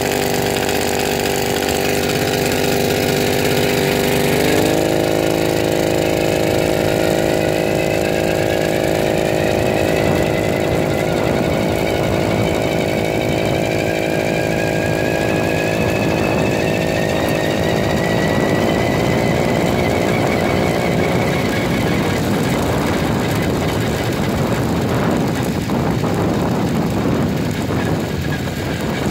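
Small 80cc bicycle engine running as the motorized bike is ridden. Its note steps up about four seconds in, then rises steadily as the bike picks up speed. In the last few seconds a rushing noise covers it.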